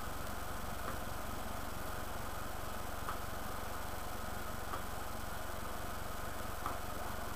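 Steady low hum and hiss of background room noise, with four faint small clicks spread through it.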